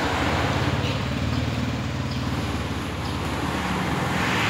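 Engine of a motor vehicle running close by, a steady low rumble with fast, even firing pulses, over general street traffic noise.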